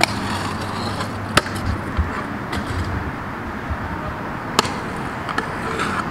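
Pro scooter wheels rolling on concrete and the scooter grinding along a concrete skatepark ledge, a steady rumble broken by a few sharp clacks of the scooter striking the concrete.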